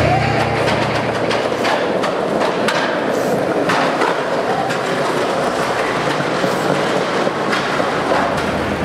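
Skateboard rolling over concrete: a steady rumble of the wheels with several sharp clacks of the board.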